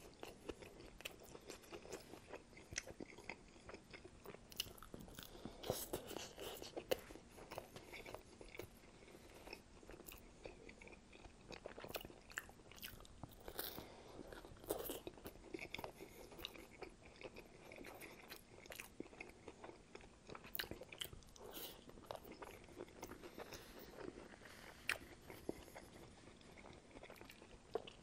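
Close-miked chewing of a soup-dunked sandwich: faint, irregular wet mouth clicks and smacks.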